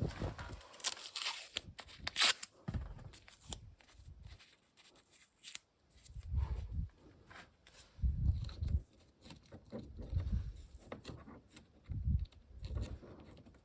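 Hands-on work noises: a few sharp scraping or tearing strokes early on, then dull low thumps about every two seconds.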